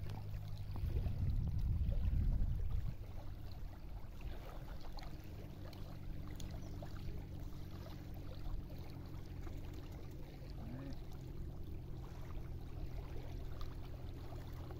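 Faint shoreline ambience: small waves lapping at the sand over a low, steady hum, with a louder low rumble for the first few seconds.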